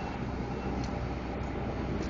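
A heavy truck's diesel engine running with a steady low rumble.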